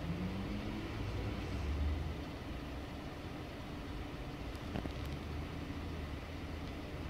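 Fire engine's diesel engine running in the station bay, rising in pitch briefly near the start and then settling to a steady low rumble.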